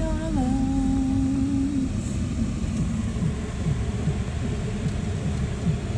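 Car driving slowly, heard from inside the cabin: a steady low rumble of engine and tyres. A steady hum sounds over it and stops about two seconds in.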